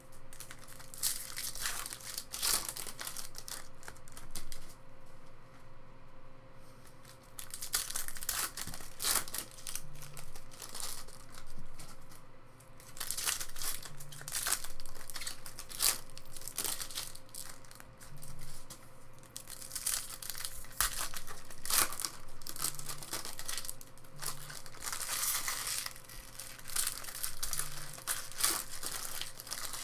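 Foil wrappers of Topps Chrome baseball card packs being torn open and crinkled by hand, pack after pack, in repeated spells of crinkling and tearing.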